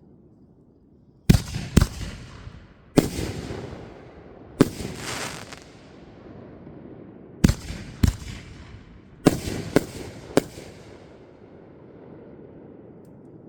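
Fireworks exploding: about nine sharp bangs in irregular pairs and threes. Several bangs trail off over a second or so.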